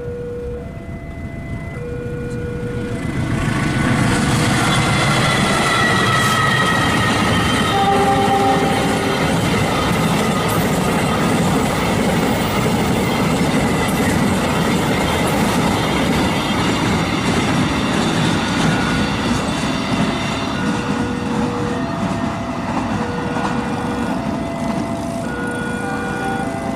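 A CC206 diesel-electric locomotive approaches and passes sounding its horn, the semboyan 35 signal, with the horn's pitch falling as it goes by. A long run of wheels clacking over the rail joints follows. A repeating electronic two-tone warning chime sounds before the train arrives and again near the end.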